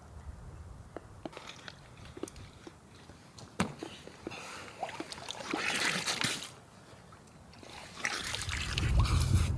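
Water splashing and trickling as a water bottle is dipped and filled in a shallow pond, after a few light clicks and taps. A low wind rumble on the microphone comes in near the end.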